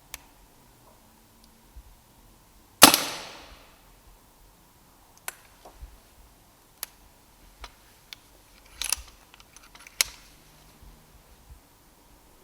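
A single shot from a Brocock Ranger XR pre-charged pneumatic air rifle about three seconds in, a sharp crack that rings away over about a second. It is followed by a scattered series of sharp clicks and knocks, two of them louder, near the end.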